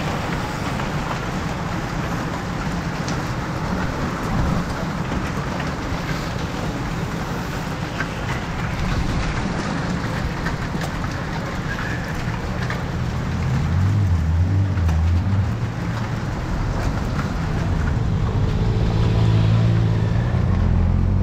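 A pack of racing bicycles rolling past: a steady hiss of many tyres and drivetrains on the road. In the last several seconds the engines of the following team cars come in, low and a little louder.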